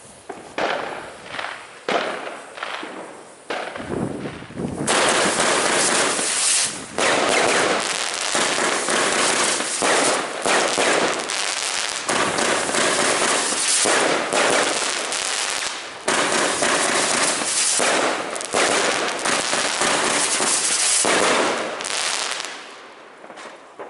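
Zena Superblitz 500-gram multishot fireworks cake firing: a few separate shots about every half second to second at first, then from about five seconds in a dense, unbroken barrage of shots for some seventeen seconds, dying away near the end.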